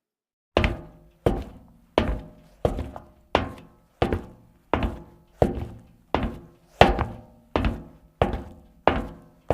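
Comedy sound effect of a heavy knock struck over and over at an even pace, about three hits every two seconds, each hit ringing briefly with a low tone and dying away.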